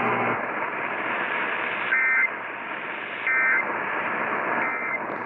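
Emergency Alert System end-of-message tones: three short bursts of two-tone SAME data warble, about 1.3 s apart, over steady radio hiss. They mark the end of the broadcast severe thunderstorm warning.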